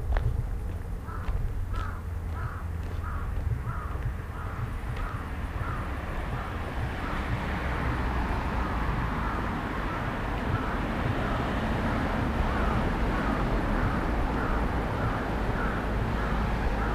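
An animal call, short and repeated evenly about twice a second, over a steady low rumble; a broad hiss swells in from about halfway through.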